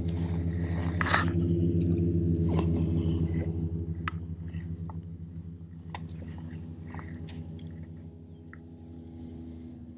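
A steady low mechanical hum, strongest in the first few seconds and slowly fading, with scattered sharp clicks over it.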